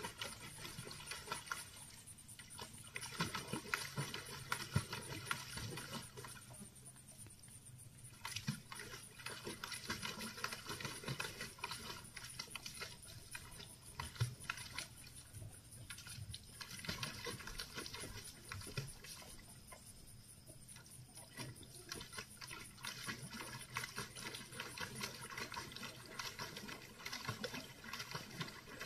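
Great Pyrenees lapping water from a plastic tub in quick, regular runs of a few seconds, pausing briefly between them.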